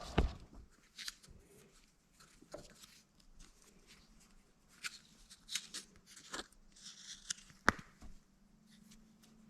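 Scattered light clicks, taps and rustling of hands handling small threaded pipe fittings and Teflon thread-seal tape, with one sharper click near the end.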